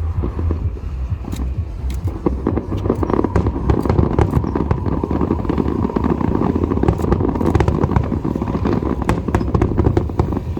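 Aerial fireworks going off in a dense stream of bangs and crackling over a continuous low rumble.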